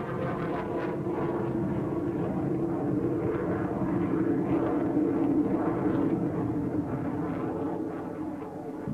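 Jet aircraft engines running at takeoff power as the plane lifts off and climbs away: a steady rushing jet noise that swells toward the middle and eases a little near the end.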